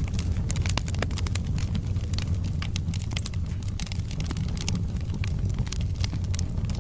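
Wood logs burning in a fireplace: a steady low rumble of the flames with many sharp, irregular crackles and pops, several a second.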